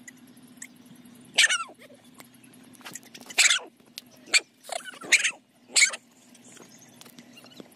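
A dog barking in about five short, sharp outbursts, squaring off face to face with a billy goat.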